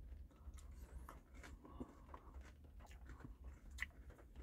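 Faint chewing and mouth sounds of someone eating a McFlurry of soft-serve ice cream with caramel sauce and crunchy popcorn pieces, with scattered small clicks and one sharper click near the end, over a low steady hum.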